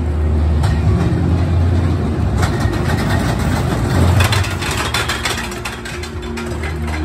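Cavazza Diego roller coaster train running along its track, a low rumble with rapid rattling and clattering. The rattling comes in about two and a half seconds in, is loudest around four seconds, and fades off near the end.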